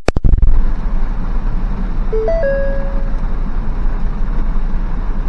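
A short three-note electronic chime, low, then high, then a held middle note, sounds about two seconds in over a steady low rumble, after a quick rattle of clicks right at the start.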